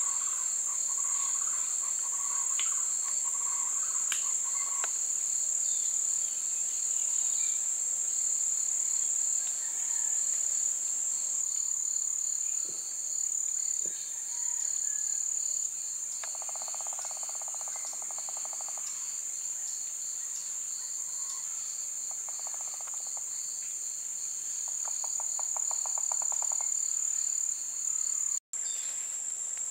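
Insect chorus: a steady high-pitched shrill drone with a faster pulsing note beneath it. Birds call in repeated short notes over the first few seconds, and short rattling trills come three times in the second half. The sound cuts out for an instant near the end.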